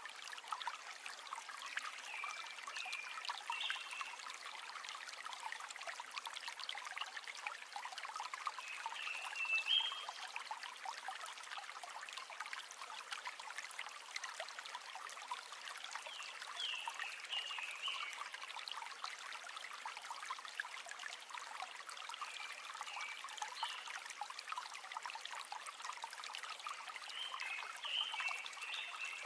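River water running and trickling, a steady flow made up of many small splashes, with short high chirp-like notes recurring every few seconds.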